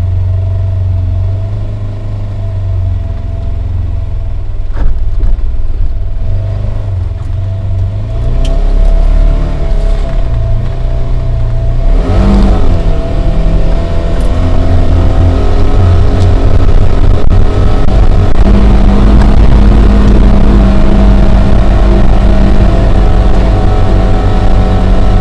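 Side-by-side UTV engine running as it drives over a rough woods trail, heard from inside the cab: a steady low drone with a held higher tone. It gets louder about a third of the way in as the machine speeds up, and there is a single brief knock early on.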